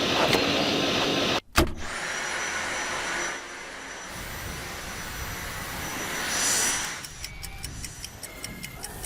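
Cordless stick vacuum running with a steady whooshing rush and a thin high motor whine. It breaks off for an instant about a second and a half in and swells near six and a half seconds. After that the noise falls away into a run of quick ticks.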